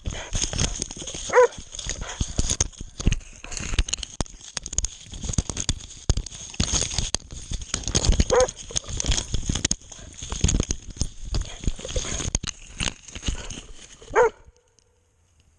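A boar-hunting dog barks three times, spaced several seconds apart, over constant crackling, rustling and knocking from the dog moving with the camera strapped to it. The noise drops out suddenly just after the third bark.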